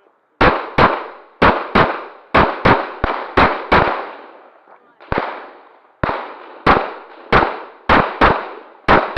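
Rapid pistol fire: about sixteen handgun shots in uneven pairs and runs, each with a short echoing tail, with a brief pause about four seconds in before the firing resumes.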